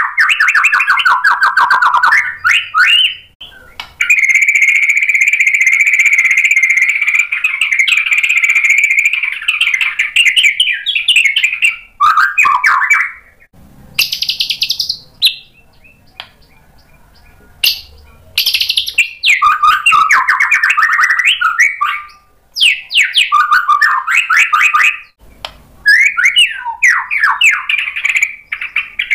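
Male white-rumped shama (murai batu) singing loud, fast phrases of trills and whistles. A long rapid trill runs for several seconds early on. After a short pause in the middle come more bursts of quick notes.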